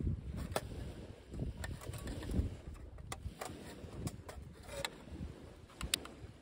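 Thin metal panels of a compact folding wood stove clicking and clinking as they are fitted together by hand, with wind rumbling on the microphone.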